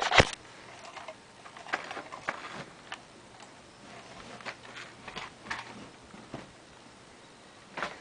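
Scattered clicks, taps and light rustling as a small dog moves about on a quilt, with a sharp knock right at the start and another near the end.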